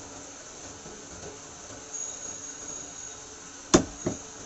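Two chops of a heavy butcher's cleaver on a wooden chopping block near the end, the first sharp and loud, the second weaker about a third of a second later, over a steady background hum.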